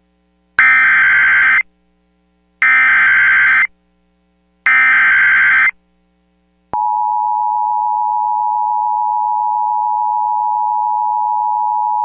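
Emergency Alert System SAME header: three bursts of digital data tones, each about a second long with a second's gap between them. About seven seconds in, the loud, steady two-tone EAS attention signal (853 and 960 Hz) begins.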